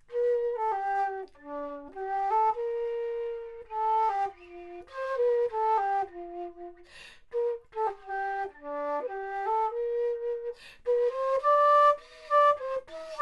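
A 3D-printed plastic baroque flute (traverso) modelled on a Bizey plays a melody in its lower register, mixing short notes with held ones. The melody comes in phrases with brief breath pauses, about seven seconds in and again near eleven seconds.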